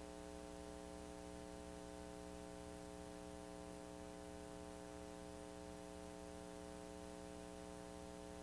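Faint steady electrical mains hum, several even tones together, over a light hiss. Nothing else sounds.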